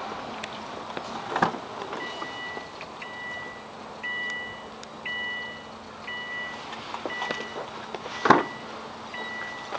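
Subaru Impreza Sports Wagon's electronic key-reminder chime beeping over and over, about once every three quarters of a second, starting about two seconds in: the key is left in the ignition with the driver's door open. A thump about a second in and a louder one near the end.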